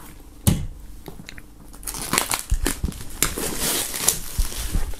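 Plastic shrink-wrap film being peeled off a cardboard box by hand, crinkling and crackling continuously from about two seconds in. A single sharp tap comes about half a second in.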